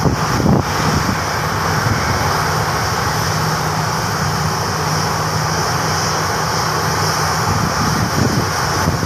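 Jet engines of a Lion Air Boeing 737 running steadily at low power while the airliner sits on the runway. A steady low hum is heard, with a high whine and rushing noise above it.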